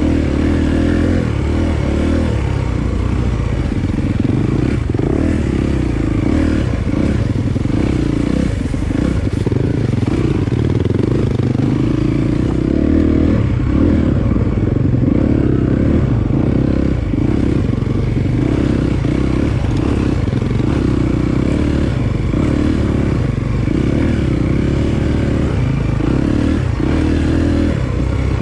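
Dirt bike engine running steadily along a single-track trail, its note dipping briefly again and again.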